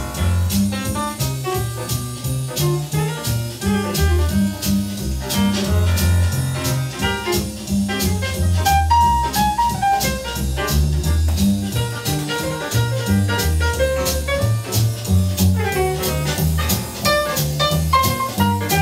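Swing jazz record playing on a Garrard DD400 direct-drive turntable with an Ortofon OD1 cartridge, heard from the room's loudspeakers through a camera's built-in microphone. A jazz band plays over a moving bass line, with drum strokes keeping a steady beat.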